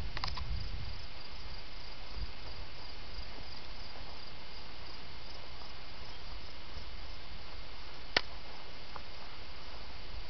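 Crickets chirping in a steady, evenly pulsing trill over a low rumble, with one sharp click about eight seconds in.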